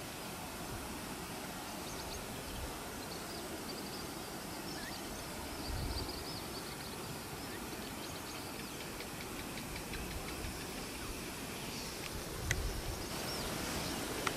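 Outdoor bush ambience: a steady hiss with faint, high, short chirping throughout. A low thump comes about six seconds in, and a sharper knock with a low rumble comes near the end.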